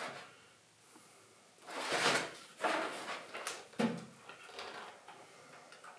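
A hardcover book being handled over its cardboard mailer, with its pages flipped: paper and cardboard rustling in several short bursts starting about two seconds in, with a sharp knock near the four-second mark.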